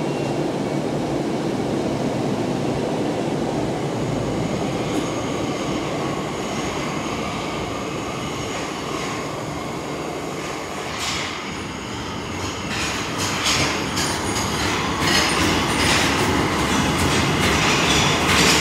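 Tokyo Metro Ginza Line subway train running in the tunnel, heard from inside the car as a steady rumble. In the last third the wheels start clicking and squealing, and the sound grows louder.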